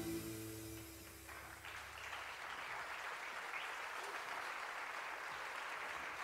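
The jazz band's last chord rings and fades away over the first second or so, then an audience applauds steadily.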